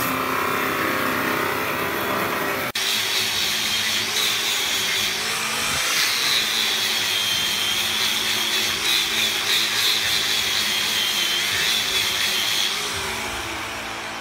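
A band saw cuts through a block of wood. After a sudden break about three seconds in, an angle grinder with a sanding disc runs with a steady high whine, grinding the wood block to shape, and its sound fades near the end.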